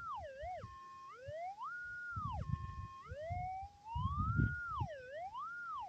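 Metal detector's target tone through its speaker as the coil passes over a small gold nugget: one tone sliding up and down in pitch several times, with low rumbling underneath.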